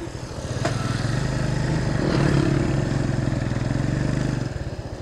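Motorcycle engine running as the bike is ridden along a road, heard from the rider's seat; its note swells about half a second in, holds steady, and eases off near the end.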